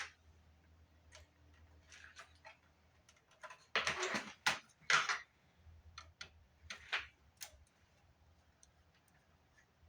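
Clicks and clatter of a Fostex MR-8 recorder's plastic casing and screws being handled with a screwdriver during disassembly: a sharp click at the start, scattered light clicks, and a louder run of rattling clicks about four to five seconds in, with another near seven seconds. A faint low hum runs underneath.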